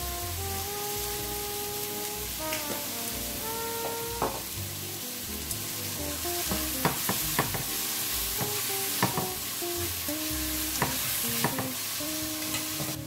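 Bok choy and sliced onion sizzling in a non-stick frying pan over high heat, with chopsticks tapping and scraping against the pan as the vegetables are tossed, several sharp taps from about four seconds in. Background music plays along.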